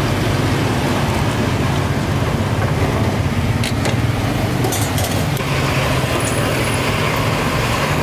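Steady low engine hum with street traffic noise, a few brief clicks and a short high tone in the middle.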